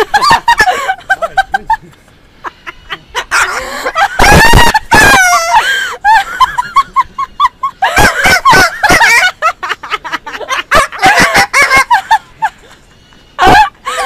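Parrot screeching and chattering, with a loud drawn-out screech about four seconds in followed by a quick run of even, repeated short notes, then more chattering calls.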